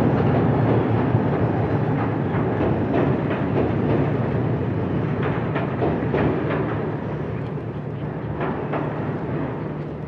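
A train running on rails: a steady low rumble with scattered sharp clacks, slowly growing quieter.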